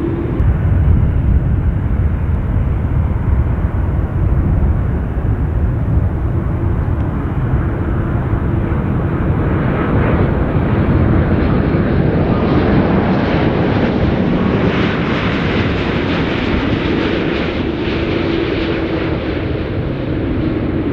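Jet airliner's engines, a continuous heavy rumble; a rushing hiss builds from about halfway through, is strongest in the last third, then eases near the end.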